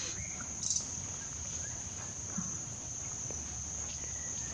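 Steady, high-pitched drone of insects such as crickets or cicadas, with a brief high chirp less than a second in.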